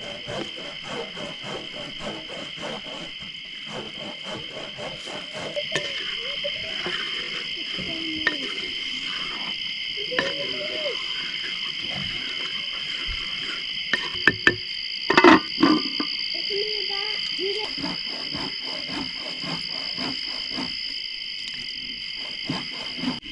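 Steady chorus of crickets, a constant high-pitched trill, with a cluster of sharp knocks a little past halfway.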